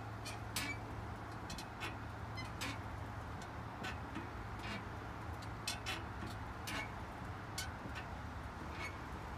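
Porch swing ticking and creaking as it sways back and forth: short sharp ticks about once a second, sometimes in pairs.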